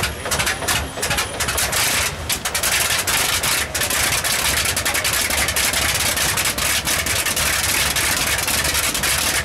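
Bristol Hercules fourteen-cylinder, double-row sleeve-valve radial engine starting up. It fires unevenly for the first few seconds, then settles into steady running about four seconds in.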